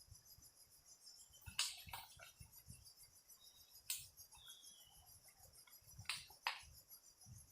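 Steady high-pitched insect chorus, with a few sharp clicks and light knocks scattered through.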